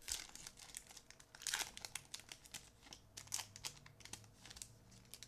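Foil wrapper of a Topps baseball card pack crinkling in quick crackles as it is handled and opened by hand, loudest about a second and a half in.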